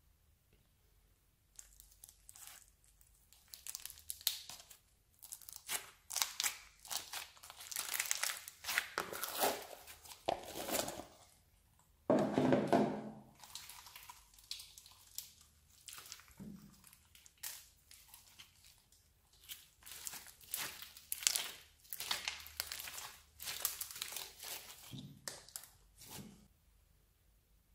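Hands squeezing, stretching and pressing slime packed with foam beads: irregular crackling, crunching squishes, with a louder, fuller squish near the middle.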